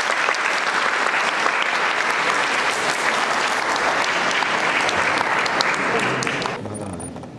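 A crowd applauding with dense clapping that stops fairly suddenly near the end.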